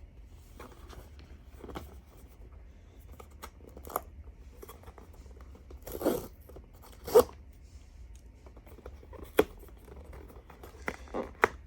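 Blind-box packaging being opened by hand: scattered rustling, tearing and crinkling of the wrapping with light taps on cardboard, and a few louder sharp snaps midway and near the end.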